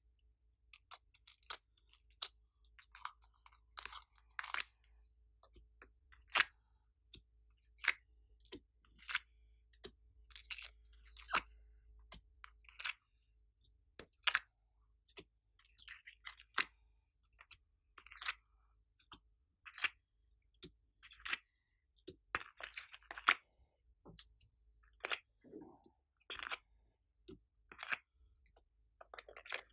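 Soft slime cubes being pressed out of a flexible plastic compartment tray and set onto a dish of slime: irregular sticky clicks, crackles and the odd squelch.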